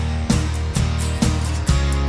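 Background music: a guitar-led track with a steady beat of about two beats a second over sustained bass notes.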